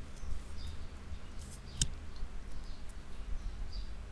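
A single sharp computer-mouse click about two seconds in, over a low steady hum, with a few faint high chirps in the background.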